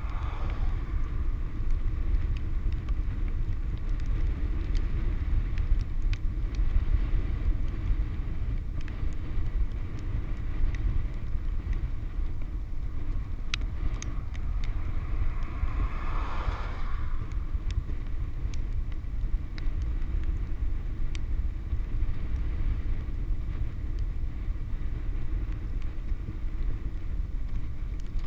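Wind buffeting the microphone of a handlebar-mounted action camera on a fast bicycle descent: a steady, heavy low rumble with small scattered clicks. About sixteen seconds in, an oncoming car passes with a brief swelling and fading whoosh.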